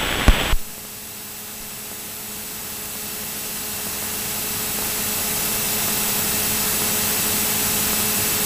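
Cessna 172SP cabin noise on final approach: a steady hiss with a faint engine hum, slowly getting louder. A brief click comes just after the start.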